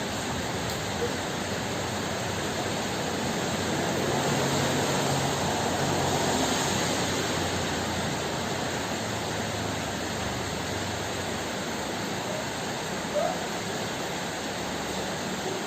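Steady heavy rain, swelling louder for a few seconds near the middle.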